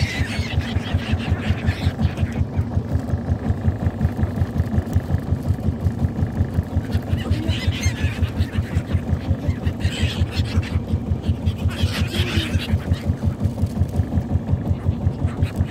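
A long-tail boat's engine running steadily with an even, rapid thump of about four or five beats a second. Gulls call a few times over it, near the start and again around the middle.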